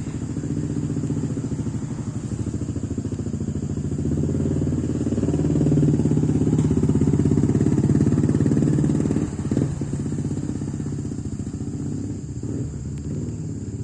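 A vehicle engine running steadily, its beat growing louder about a third of the way in and easing off again just past the middle.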